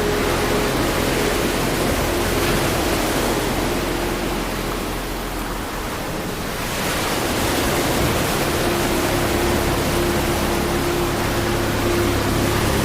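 Steady rushing ocean-ambience noise, like surf or moving water, with a few low held tones running under it. It thins out briefly around the middle, then swells back.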